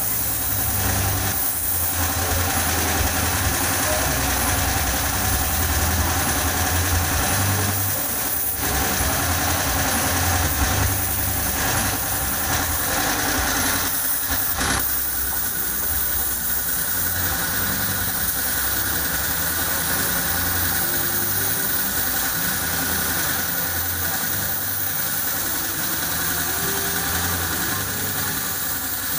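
Pneumatic paint spray gun hissing as clear coat is sprayed onto a car body, over a steady low motor hum.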